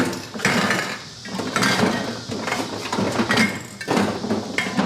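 Metal spray-paint cans clinking and rattling as they are handled and rummaged through, in a string of irregular knocks.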